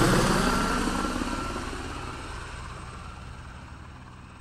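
Steady engine noise with a hiss over it, fading out gradually.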